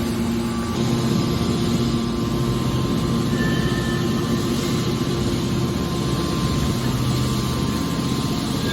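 A hydraulic scrap metal baler running: a steady machine hum from its motor and pump.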